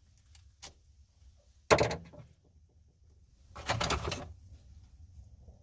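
Small metal clicks and clatter from a car seatbelt retractor being worked on with tools: a light click, a sharp knock just under two seconds in, then a rattling scrape lasting about half a second near the four-second mark.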